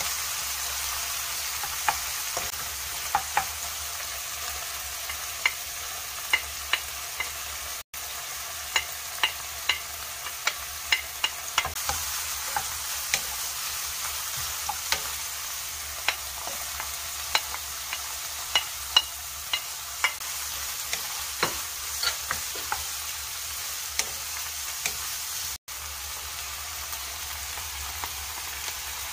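Fish flesh and chopped vegetables sizzling in oil in a nonstick wok, stir-fried with a wooden spatula that clicks and taps against the pan many times, several times a second at its busiest. The sound breaks off for an instant twice.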